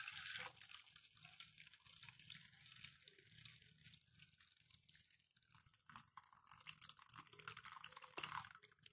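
Faint sound of hot hibiscus-petal water being poured from a pot through a plastic strainer into a steel bowl, stronger in spells in the second half.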